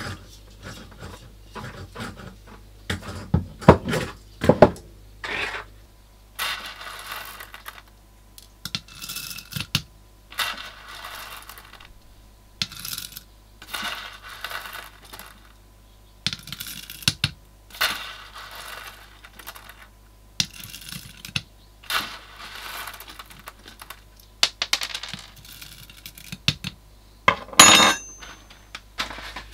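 Coffee beans being spooned from a bag into a hand coffee grinder, rattling and clinking in a run of short pours about every second or two, after some clicks and knocks of things handled on the counter. A sharper ringing clink comes near the end.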